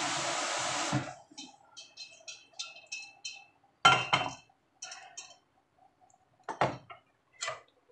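Running tap water that stops about a second in, then light clinks and a few sharper knocks of dishes and a pot being handled.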